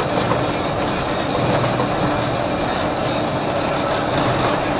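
A city bus in motion, heard from inside: a steady rumble of engine and road noise with light rattling.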